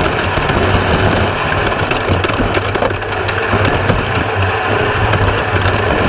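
Class 1/2-1600 desert race car, with its air-cooled VW 1600 engine, running steadily over rough ground. A constant engine drone sits under a dense, noisy clatter of many sharp rattles and knocks.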